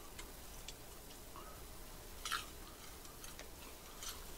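Faint, scattered crunches and clicks of someone chewing food, with a couple of slightly louder crunches about two and four seconds in.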